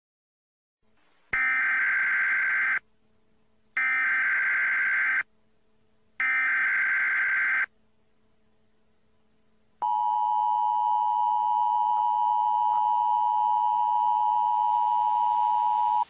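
Emergency Alert System tones: three short bursts of digital SAME header data, each about a second and a half, followed about ten seconds in by the steady two-tone EAS attention signal (853 and 960 Hz together).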